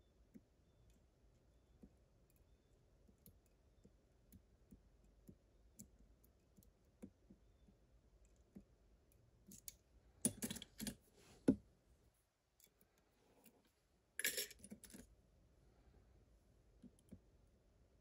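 Faint, irregular small clicks of a lock pick working the pins inside an Abus TS5000 padlock's cylinder. About ten seconds in, a louder metallic clatter of picks being set down and picked up among loose tools and padlocks, and a second, shorter clatter a few seconds later; these are the loudest sounds.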